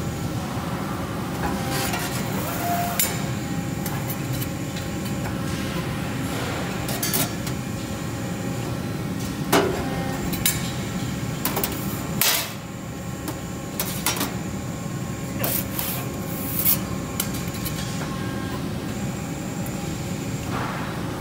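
Accurpress 60-ton CNC hydraulic press brake running with a steady hum while sheet metal is bent on it. Sharp metallic clanks and clicks come every second or two, from the sheet being handled and formed.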